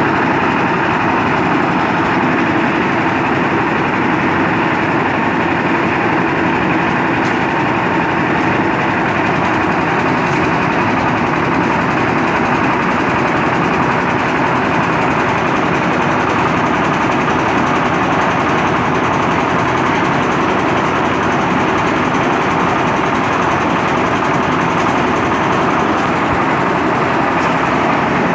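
Concrete mixer's engine running steadily, a loud, even mechanical noise that holds without change.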